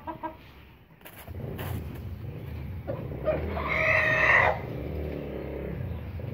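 Chickens: a few short clucks at the start, then one loud, drawn-out call lasting a little over a second about three seconds in, over a steady low rumble.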